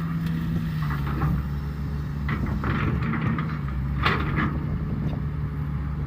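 Caterpillar excavator's diesel engine running steadily, with three short bursts of higher-pitched noise over it as the machine works.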